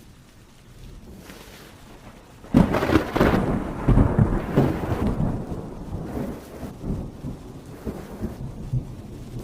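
A thunderclap breaks suddenly about two and a half seconds in, then rumbles and crackles as it slowly dies away, over heavy rain.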